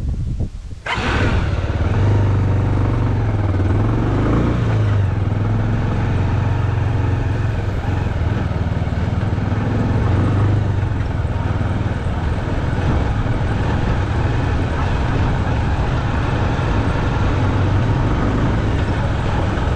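Motorcycle engine running steadily while the bike is ridden, coming in suddenly about a second in.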